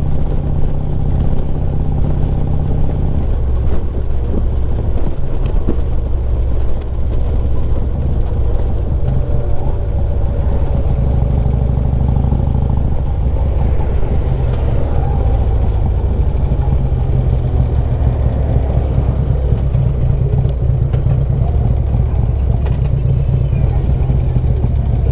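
Harley-Davidson Street Glide's V-twin engine running while riding, with road noise; the engine note steps down about three seconds in and again near the middle as the bike slows.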